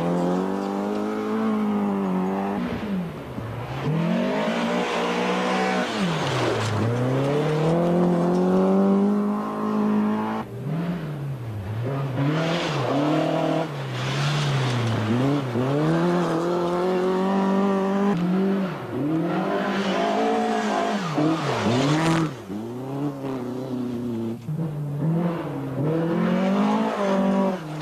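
Rally car engines revving hard on a gravel special stage, several cars in turn, the pitch climbing and dropping again and again through gear changes and lifts off the throttle. The sound breaks off abruptly twice as it switches from one car to the next.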